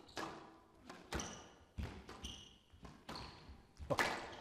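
Squash rally: the ball cracks sharply off rackets and the court walls about once a second, with the loudest hit near the end. Between the hits come short high squeaks of court shoes on the floor.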